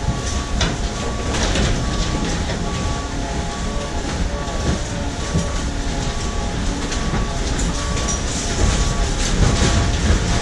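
Truck-mounted hydraulic compactor arm pressing down into a full roll-off dumpster, with the truck's engine and hydraulics running under crunching and cracking debris. A short warning beep repeats steadily throughout.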